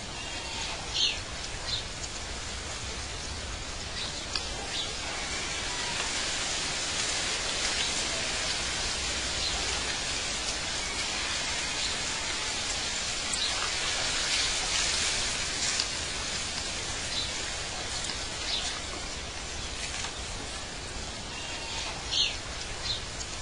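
Outdoor nature ambience: a steady hiss with short high chirps now and then, a few near the start and a few near the end.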